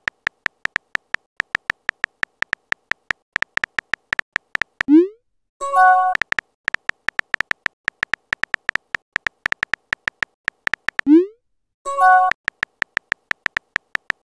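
Texting-app sound effects: a fast run of short, even keyboard-tap clicks as a message is typed letter by letter. Twice the clicks give way to a rising 'bloop' as a message is sent, then a short chime as the new message bubble appears.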